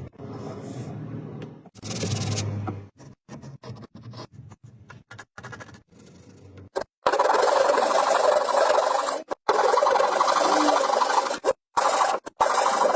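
Scraping and rasping on wood in short stretches that start and stop abruptly, quieter at first and much louder from about seven seconds in.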